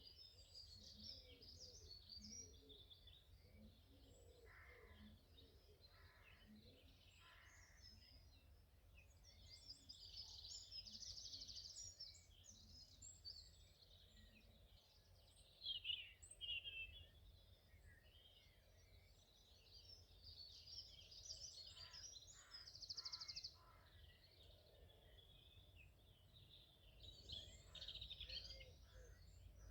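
Faint songbirds singing and chirping, with several overlapping calls and trills that swell and fade, over a steady low rumble.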